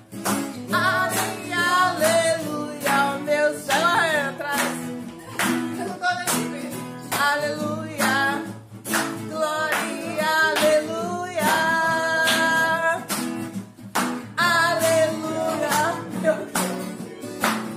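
Acoustic guitar strummed in a steady rhythm while a voice sings a melody over it.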